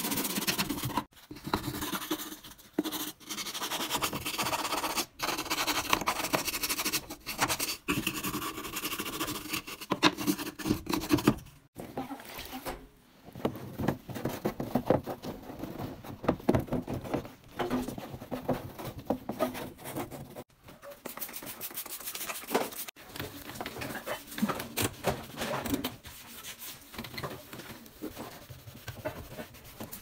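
A brush scrubbing the plastic of a washing machine's detergent drawer and its recess: quick scratchy strokes, broken by several abrupt cuts.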